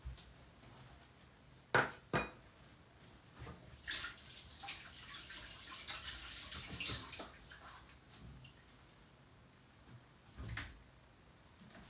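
China dishes being handled as a saucer is taken out and set down: two sharp clinks about two seconds in, a few seconds of clattering in the middle, and a dull knock near the end.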